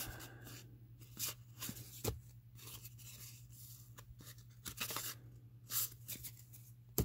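1987 Fleer cardboard baseball cards being leafed through by hand, sliding and flicking against one another in a string of short, irregular papery rustles and snaps, a few of them sharper. A low, steady hum runs underneath.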